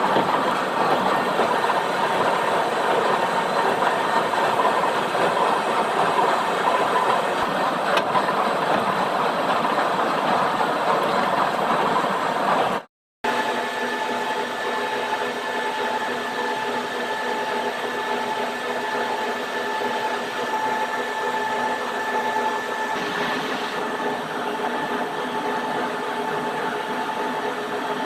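Steady running noise of metalworking machinery. About 13 seconds in, the sound cuts out for a moment, and a different, steadier machine hum follows with a few held tones.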